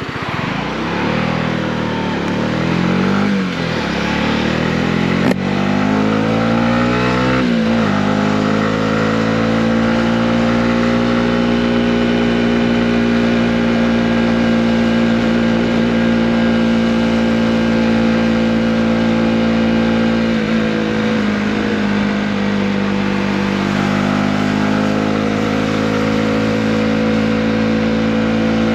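Honda CB125R's single-cylinder four-stroke engine accelerating through the gears, the revs climbing and dropping with each shift over the first several seconds, then running at a steady cruising speed. The revs dip briefly about two-thirds of the way through before settling again.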